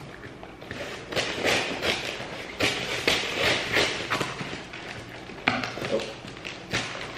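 Scissors cutting through packing tape and cardboard on a taped-up box: a quick run of short snips and rustles, with one sharper snap about five and a half seconds in.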